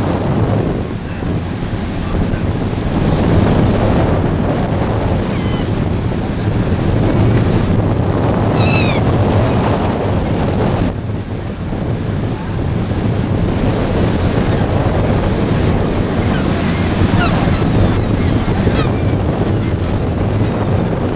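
Wind buffeting the microphone and water rushing past a moving tour boat, a steady loud rumble. A few short high chirps come through about nine seconds in and again near the end.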